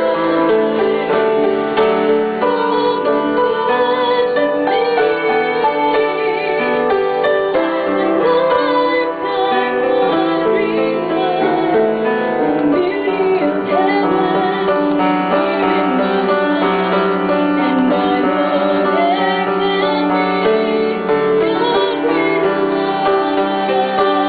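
Live singing with piano accompaniment. The piano is loud against the voices, and the singing carries a vibrato.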